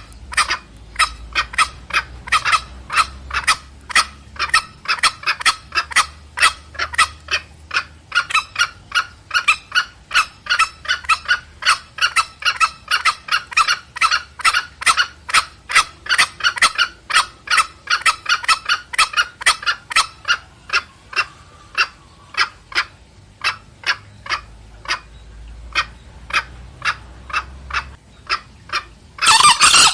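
Green junglefowl giving a long rapid run of short clucking 'petrek' call notes, about two to three a second, with a louder, longer call near the end.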